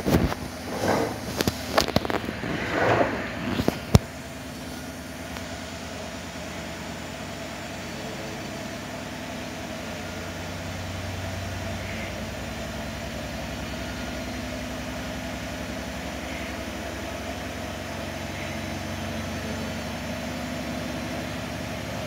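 Bosch Series 6 front-loading washing machine running on its Super Quick 15/30 programme, a steady mechanical hum with a low drone. In the first few seconds it is mixed with irregular rustles and knocks, and a sharp click comes about four seconds in.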